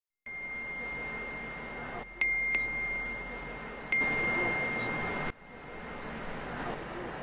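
Phone notification tone: a steady high ringing tone with bright electronic dings over it, two in quick succession about two seconds in and a third just under two seconds later. The whole sound cuts off abruptly a little past halfway.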